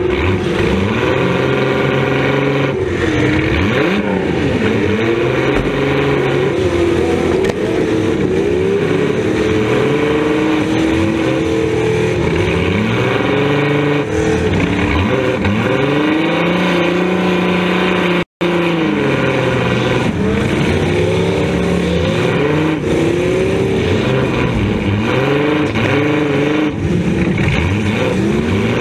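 A demolition derby car's engine heard from inside its stripped cabin, revving up and falling back again and again as the car is driven hard. The sound drops out for a split second about eighteen seconds in.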